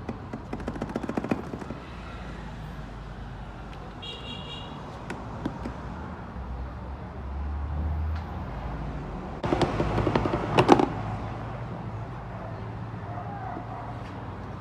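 Loose rear passenger seat of a Kawasaki Z400/Ninja 400 rattling and clacking against its mount in two bouts: a short one near the start and a louder one about ten seconds in. The rattle comes from play in the seat's mounting.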